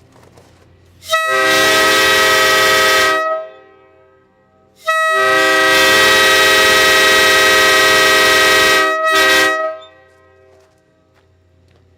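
Homemade small-scale PVC copy of a K5LA five-chime train horn blown on 120 psi compressed air: a blast of about two seconds, then a longer blast of about five seconds with a brief break near its end. Several steady tones sound together as one chord.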